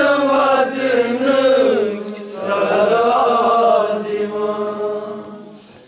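A noha, a Shia mourning lament, chanted by male voice in long, drawn-out sung phrases. There are two held phrases, and the chant fades out near the end.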